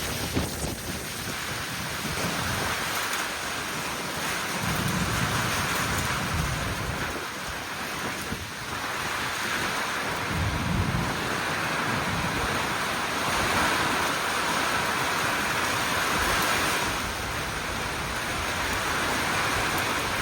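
Kalbaishakhi (nor'wester) thunderstorm: rain falls steadily, and low thunder rumbles about five seconds and again about ten seconds in.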